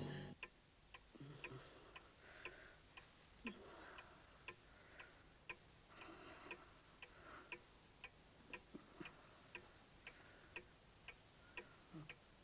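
Pendulum wall clock ticking faintly and evenly, about two ticks a second. A loud drum-like music hit dies away at the very start.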